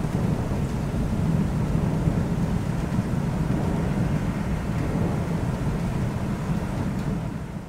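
Long, low rumble of rolling thunder over steady rain, fading away near the end.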